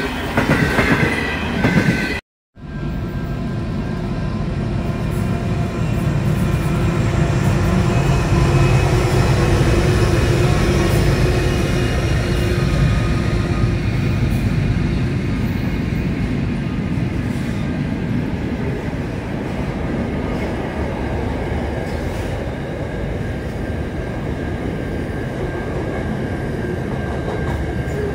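Double-stacked container freight train rolling past: a steady rumble of wagon wheels on the rail joints, with faint squealing tones from the wheels. It opens with about two seconds of a stainless-steel passenger train's carriages passing, cut off abruptly.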